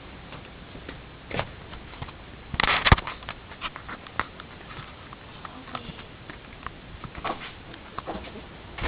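Footsteps and handling noise as people walk off: scattered light knocks and rustles, with a louder clatter of knocks about three seconds in.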